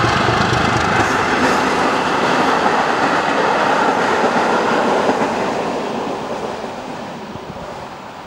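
Passenger train hauled by a ČSD class T478.1 diesel locomotive passing close by, its coaches' wheels running on the track. The sound holds steady for about five seconds, then fades as the train moves away.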